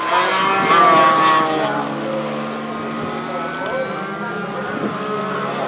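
Several racing motorcycle engines revving, their pitch rising and falling as they accelerate and shift. The revving is loudest in the first second and a half, then settles into a steadier mix of engine notes.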